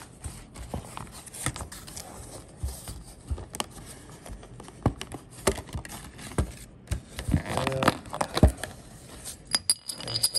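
Clear plastic packaging being handled and pulled open by hand, with irregular crinkles, crackles and snaps of the plastic.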